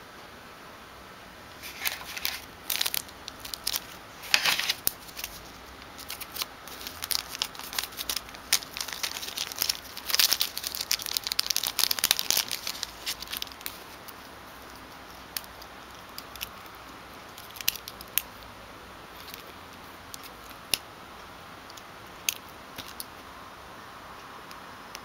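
Plastic packaging crinkling and rustling as phone accessories are unwrapped by hand, with sharp clicks of small parts being handled. Dense crackling over the first half, thinning to occasional clicks later.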